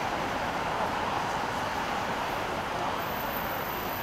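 Steady rain falling, a constant even hiss.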